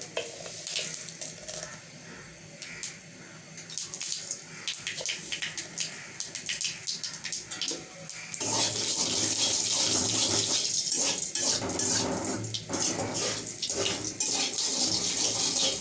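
Mustard seeds crackling and popping in hot oil during the tempering, as scattered light pops over a soft sizzle. About eight seconds in, the sizzling suddenly gets much louder and denser, with crackling, as more goes into the hot oil.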